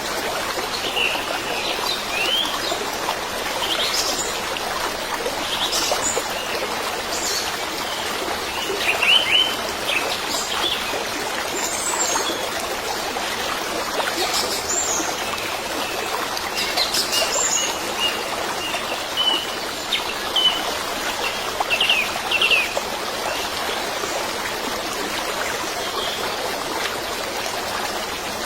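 Steady trickling stream with birds chirping, short quick calls scattered throughout.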